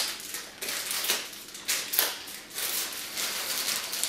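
Clear plastic packet being torn open and crinkled by hand: irregular crackly rustling in uneven spurts, with a sharp rip right at the start.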